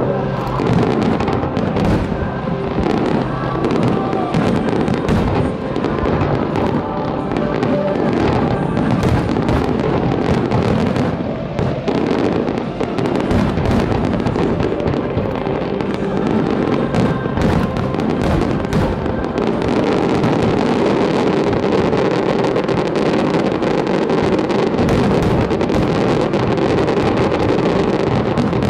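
Fireworks show: a dense, continuous barrage of overlapping bursts and crackle, with music playing underneath.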